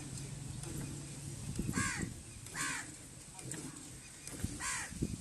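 Crow cawing three times: short, harsh, arching calls, two close together about two seconds in and one more near the end, over low rustling.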